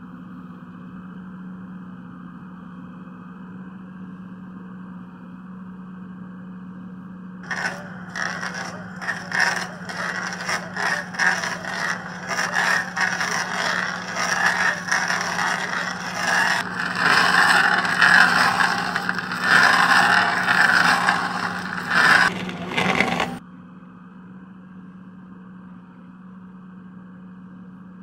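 Backhoe loader engine running steadily. About seven seconds in, a stump crusher begins breaking up a tree stump: a dense, loud run of wood cracking and splintering over the engine for about fifteen seconds, stopping suddenly.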